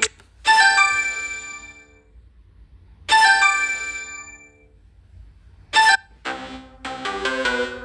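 Phone notification and ringtone chimes: a bright chiming tone sounds twice, about two and a half seconds apart, and each rings out over about a second and a half. A short chime follows near six seconds, then a different melodic ringtone begins.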